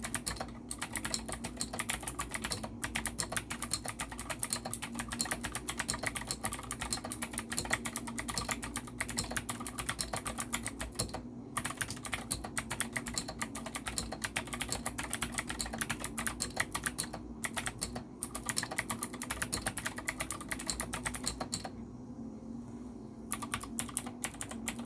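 Fast typing on a NINJA87 mechanical keyboard with clicky Gateron Green switches, their springs lubricated with Shin-Etsu 1000 silicone oil. The rapid keystroke clicks run on densely, break off briefly a few times, and mostly stop near the end, leaving a few last keystrokes.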